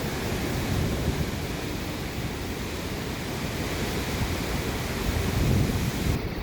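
Hurricane winds gusting hard, with wind buffeting the microphone in heavy low rumbles; the gusts swell louder near the end.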